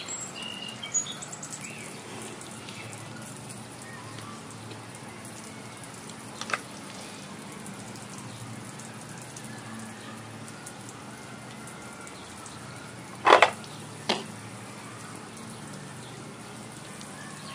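Oscillating lawn sprinkler spraying water onto wet pavement: a steady hiss of falling spray. Short sharp sounds come over it about six seconds in, and a louder one about thirteen seconds in, followed by a smaller one.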